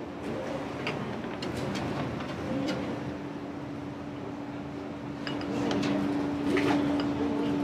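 Restaurant kitchen background: a steady mechanical hum under a noisy bed, with a few light clicks and clinks of utensils and dishes, a little louder near the end.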